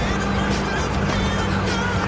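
Music playing over a vehicle engine running steadily.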